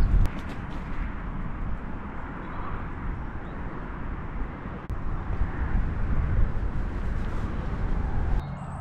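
Steady wind rumbling on the microphone, with a few sharp clicks in the first half second; the level drops just before the end.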